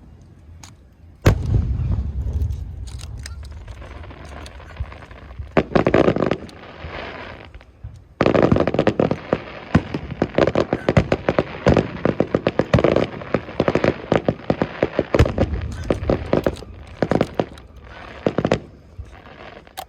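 Aerial fireworks going off: a heavy boom about a second in with a low rumble after it, then clusters of rapid crackling pops, dense and continuous from about eight seconds on.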